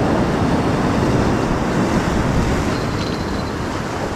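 Steady noise of rough surf washing against the rocks, with wind on the microphone.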